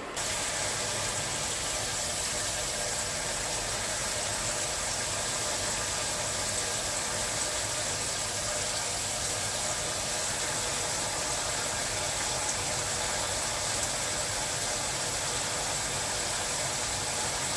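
Handheld shower head spraying cold water into the plastic wash tub of a portable twin-tub washing machine, filling it for a rinse. A steady hiss of running water that starts suddenly.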